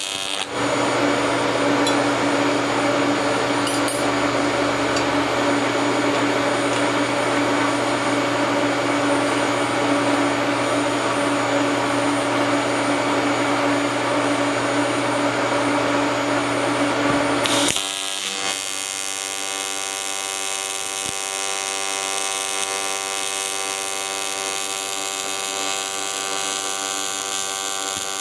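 AC TIG arc from an HTP Invertig 221 welding aluminium, buzzing steadily. For the first seventeen seconds or so a louder, harsher, hissing buzz sits over it and cuts off suddenly, leaving a softer even buzz.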